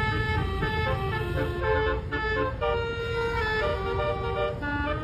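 Basuri telolet horn, a multi-tone vehicle air horn, playing a melody in short held notes that step up and down in pitch, over a steady low rumble.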